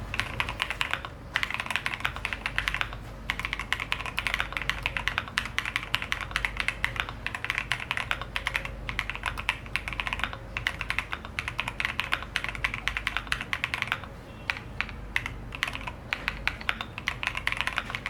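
Keychron Q1 Pro aluminium mechanical keyboard with linear switches being typed on fast and steadily, a dense run of key clacks broken by a few short pauses.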